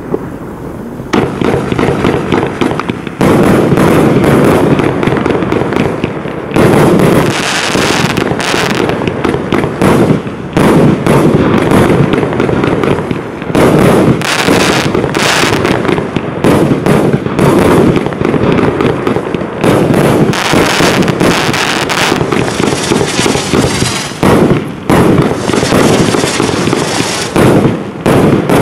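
A 144-shot firework cake firing in rapid succession: a dense, loud stream of shots and bursts that starts about a second in after a short lull.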